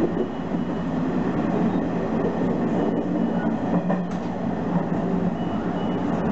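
Nishitetsu electric train running, heard from inside the front car: a steady rumble of wheels on rail, with a couple of light clicks from the wheels over the track about three and four seconds in.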